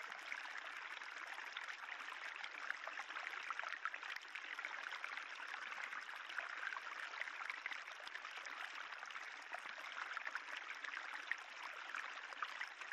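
Spring water trickling steadily along a raised limestone-tufa channel, a fine, even splashing with tiny drips throughout.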